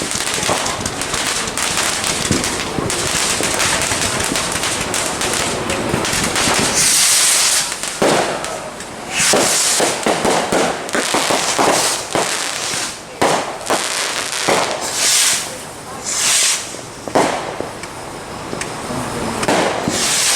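Consumer fireworks going off: dense crackling and popping, with several short hissing bursts spread through.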